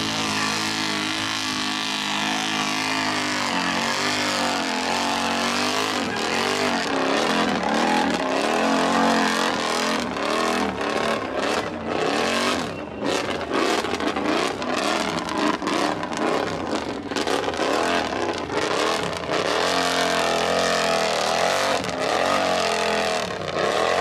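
Lifted mud ATVs revving hard through a mud bog and over obstacles, their engines rising and falling in pitch again and again as the riders blip the throttle.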